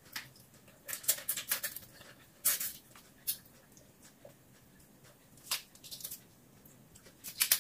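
Cooked shell-on shrimp being peeled by hand and eaten: short crackles of shell and wet mouth noises, coming several times with pauses between.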